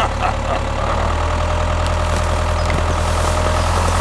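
A motor or engine running steadily: a low hum with a fast, even clatter above it.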